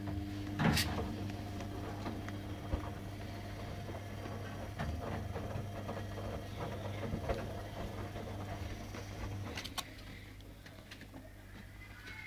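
A steady low mechanical hum that cuts off about ten seconds in, with a sharp click about a second in and another just as it stops.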